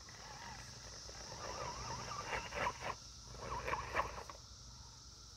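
Electric motor and drivetrain of an Element Gatekeeper RC rock crawler whining in short bursts, its pitch rising and falling as the throttle is worked on a steep climb, with a few knocks of tires and chassis on the wooden ramp. The whine dies away after about four seconds as the truck tips back.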